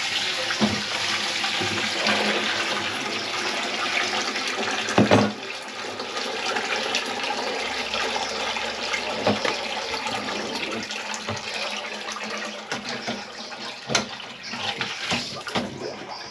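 Water running steadily into a kitchen sink being cleared of a grease clog, with a few short knocks. The loudest knock comes about five seconds in.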